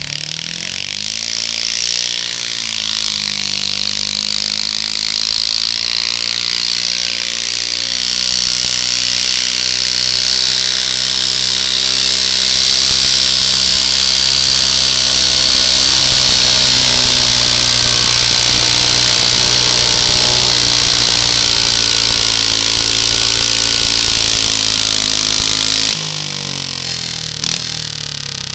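Garden tractor engine revving up and running flat out under load as it pulls a weight-transfer sled. Its pitch rises over the first few seconds, then holds high and steady with a hissy edge, and it is throttled back suddenly near the end as the pull stops.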